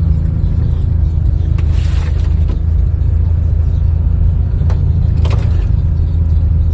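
Steady low rumble of a vehicle driving, heard from inside, with a few light knocks.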